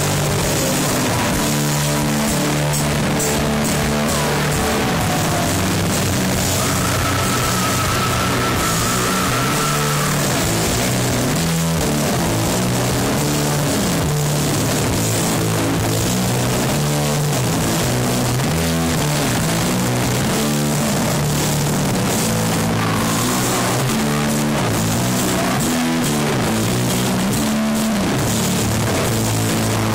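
Heavy metal band playing loud live, with guitars and bass chugging low and a steady wash of cymbals. A single high note is held for a few seconds, starting about six seconds in.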